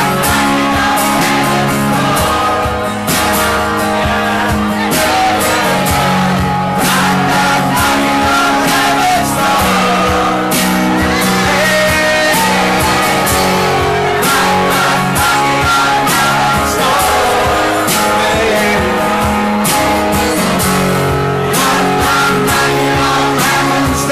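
A man singing loudly with a strummed steel-string acoustic guitar.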